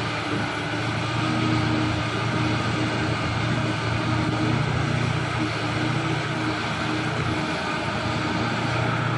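Heavy diesel engine of a large mining machine running steadily with a constant low drone.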